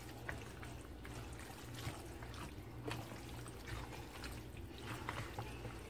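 Faint, irregular wet squelches and scrapes of a spatula stirring a thick, creamy tuna salad in a plastic bowl, over a low steady hum.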